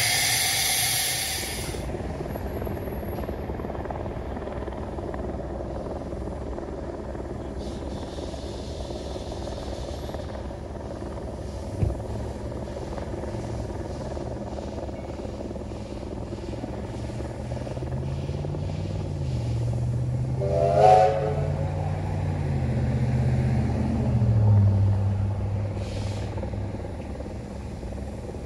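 Steam locomotive: a loud rush of steam hiss for the first couple of seconds, then steady running noise with a short whistle blast about two-thirds of the way through. A low drone rises and falls in the last third.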